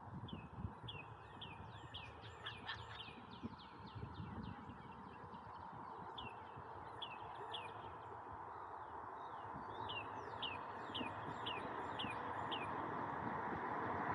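A small bird chirping in two quick series of short, repeated notes, over a steady low rumble that grows louder toward the end.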